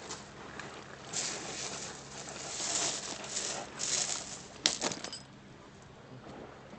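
Beach pebbles rattling and shifting in several bursts, with one sharp click a little before five seconds in, then quieter.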